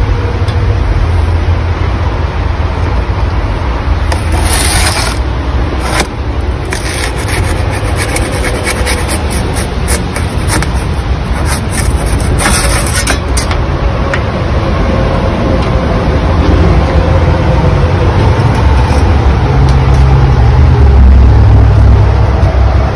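A steady low rumble, with a run of scraping and clicking from about four to fourteen seconds in as a bread peel slides a loaf of dough across the floor of a brick oven.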